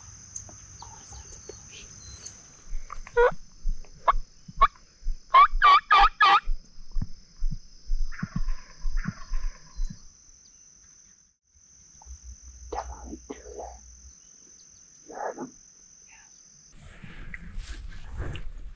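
Osceola wild turkey gobbler gobbling: a rattling run of notes that speeds into a fast burst, followed by fainter calls. A steady high-pitched trill goes on underneath and stops near the end.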